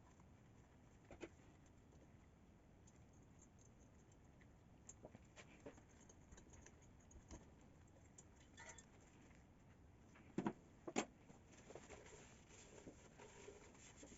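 Near silence with faint, scattered small clicks and taps of pump parts being handled, and two louder knocks about ten and eleven seconds in.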